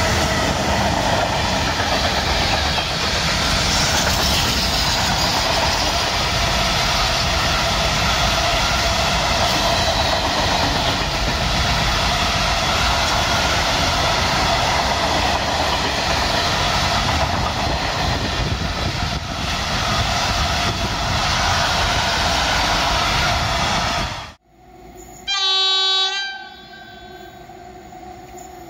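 Container freight train passing close by: a steady loud rumble and rattle of the wagons rolling over the track. The sound cuts off suddenly, and near the end an electric locomotive's horn sounds one blast of about a second.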